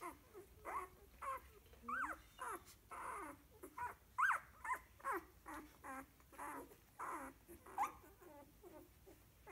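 Two-week-old Golden Retriever puppies squeaking and whimpering: a run of short high calls, about two a second, many bending up and then down in pitch.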